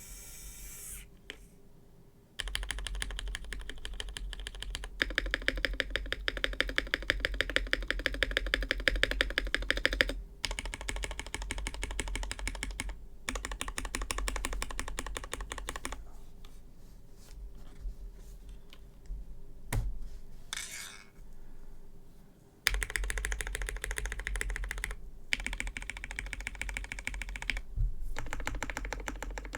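Fast typing on a custom mechanical keyboard with lubed Cherry MX Hyperglide Black linear switches, PBT keycaps, an aluminium plate and a PE foam mod: rapid keystroke clacks in bursts. There are a few short pauses and a quieter, sparser stretch about halfway through.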